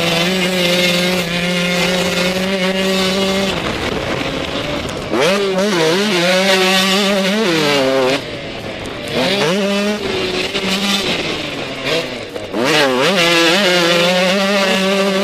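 125cc two-stroke motocross bike engine held at high revs, dropping off about three and a half seconds in, then revving up and down several times before settling back to steady high revs near the end.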